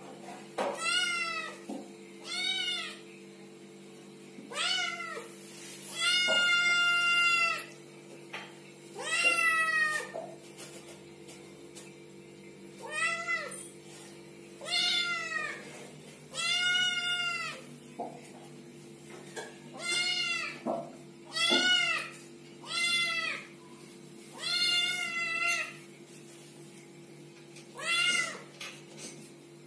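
Silver-white kitten meowing over and over: about a dozen high, arching meows one to two seconds apart, with a longer drawn-out one about six seconds in.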